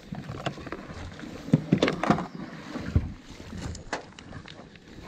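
Knocks and clatter of gear being handled and set down on the deck of a Wizard 330 aluminium jon boat, with a cluster of the loudest sharp knocks about one and a half to two seconds in and a few more single knocks later.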